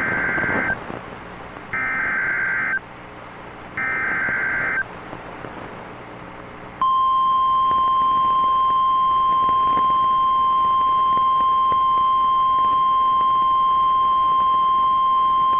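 Three short bursts of Emergency Alert System SAME header data, a shrill two-tone digital warble about a second each, then after a pause the NOAA Weather Radio 1050 Hz warning alarm tone, one steady pitch held for about nine seconds. This is the tone sequence that starts a weather radio warning broadcast.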